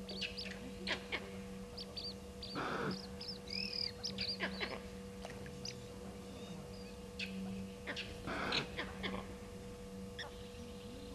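Bush birds calling: many short high chirps and whistles, with three louder, harsher calls spaced a few seconds apart. A steady electrical hum runs underneath.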